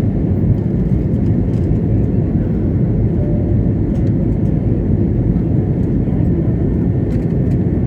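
Airliner engines and rushing air heard inside the passenger cabin, a steady low rumble.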